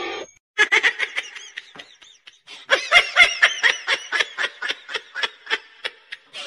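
A person laughing in a long run of short 'ha' pulses, about four a second, fading toward the end.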